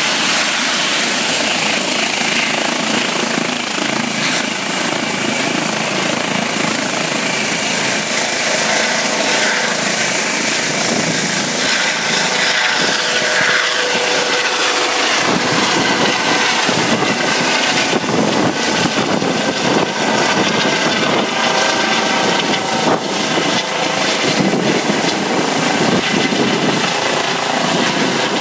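Eurocopter EC135 helicopter taking off: steady high turbine whine and rotor noise at take-off power on the ground, lifting off around the middle, then the rotor's rapid regular blade beat as it climbs away overhead.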